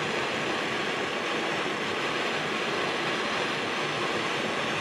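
Gas torch flame hissing steadily as it heats high-tensile steel wire toward cherry red.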